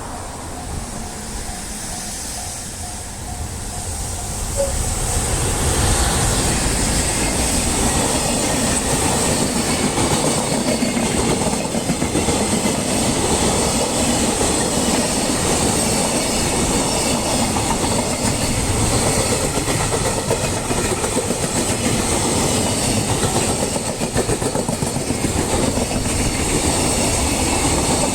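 Freight train hauled by a JR Freight EF210 electric locomotive passing close by, wheels clattering on the rails. It grows loud about five seconds in and stays loud and steady as the wagons roll past.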